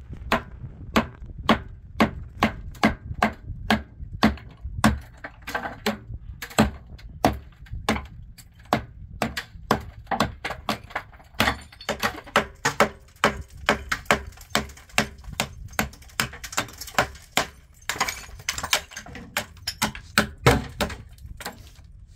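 A hammer striking the top of a concrete wall again and again, chipping off hardened concrete and mortar, at about two blows a second with quicker runs of blows in places.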